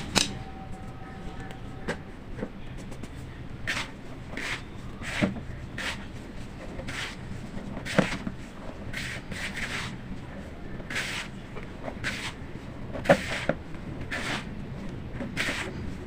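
Chunks of baking soda being crumbled: irregular soft crunches about once or twice a second, with a few sharper snaps among them.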